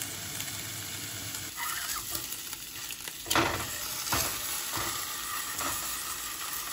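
Two steaks sizzling in a nonstick frying pan on a Coleman propane camp stove. A few sharp clicks and knocks from a fork against the pan come about halfway through as the steaks are turned over.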